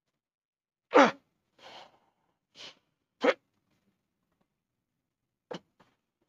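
A person's short, forceful vocal bursts, about six of them with silence between, the loudest about a second in and just after three seconds, the first sliding down in pitch.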